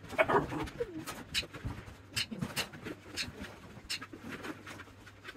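A litter of puppies whining and squeaking, with a short wavering whine near the start and small cries after it. Sharp clicks and taps come irregularly throughout.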